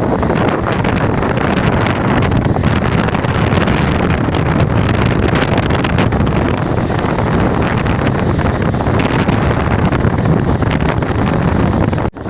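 Strong wind buffeting the microphone, with sea surf underneath. The sound cuts out for an instant near the end.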